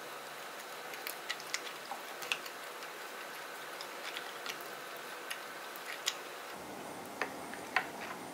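Soft, irregular clicks and small sticky pops from thick tteokbokki sauce as a spatula shifts halved boiled eggs around the pan, over a steady faint hiss.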